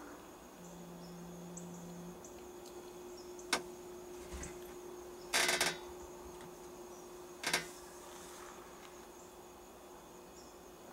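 Quiet outdoor ambience with faint, high insect chirping. Over it come a sharp click about three and a half seconds in, a louder half-second scrape around five and a half seconds, and another click near seven and a half seconds, like handling noise close to the microphone.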